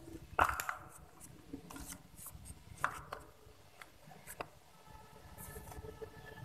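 Colorimeter wavelength filters handled in their small hard case by a gloved hand: a few light clicks and knocks, the loudest about half a second in, with faint rubbing and scraping between them.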